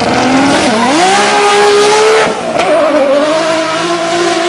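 An engine revving: its pitch dips and climbs about a second in, holds steady, then wavers after about two seconds.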